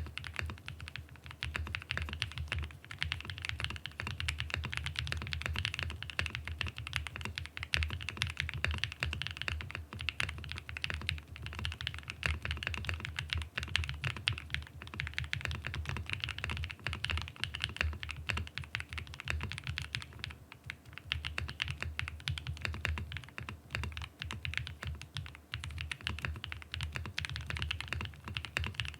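Continuous fast typing on a Mode SixtyFive mechanical keyboard with a POM plate, Infinity Key Cow switches with POM stems and PBT keycaps: a dense, unbroken stream of keystrokes with a deep low tone under the clacks.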